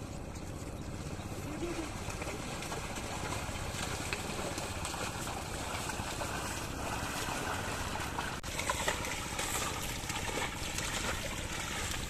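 Muddy water sloshing and splashing as a pair of bullocks and a wooden leveller are dragged through a flooded paddy field, over a steady low rumble. About eight seconds in, the splashing gets closer and busier.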